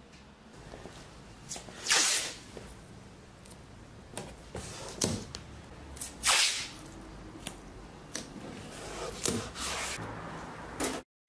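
Masking tape being pulled off the roll and pressed onto a car's bumper moulding: a few short tearing rips, the loudest about two seconds in and about six seconds in, with softer handling noises between.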